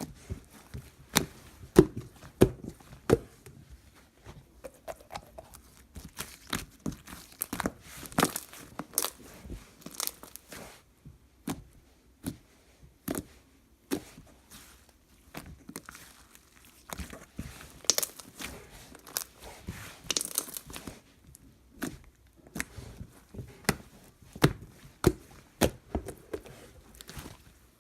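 Irregular crinkling, rustling and tearing of handled material, with scattered sharp clicks and taps and short quiet gaps between them.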